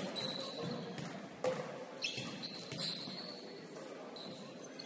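Basketball bouncing on a hardwood court a few times at uneven intervals, with short high sneaker squeaks in a large echoing gym.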